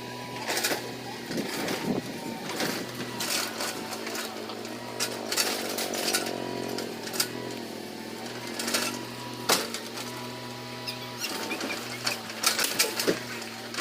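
Mini excavator's engine running steadily, with irregular sharp knocks and cracks as the bucket digs and drags a big tree root.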